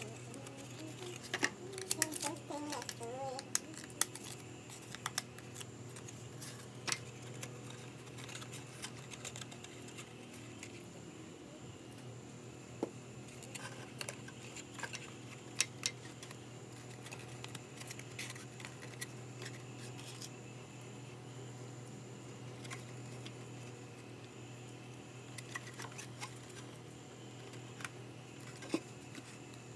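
Scattered light clicks and taps of thin plywood model-truck panels being handled and fitted together, over a steady low hum.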